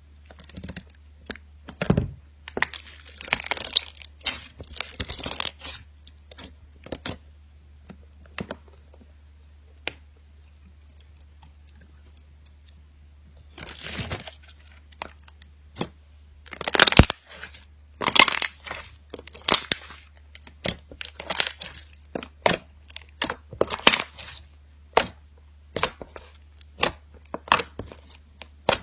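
Slime being squeezed and poked by hand, giving clusters of sharp crackling and popping clicks, with a quieter pause partway through before the crackling turns denser.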